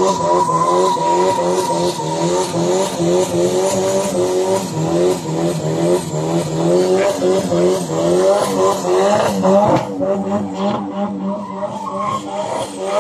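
Car doing donuts: the engine is held at high revs, rising and falling about twice a second, while the tyres squeal and skid.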